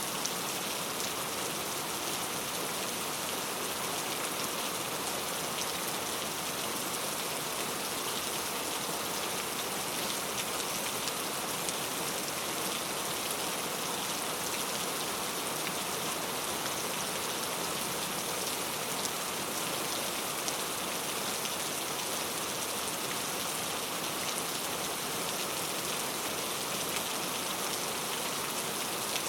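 Steady rain falling, an even hiss of many drops on a surface with scattered faint ticks, unchanging throughout.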